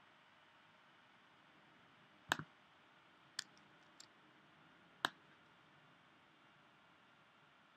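Four sharp clicks from working a computer's mouse and keyboard, a little over two, three and a half, four and five seconds in, the first and last the loudest, over faint steady room hiss.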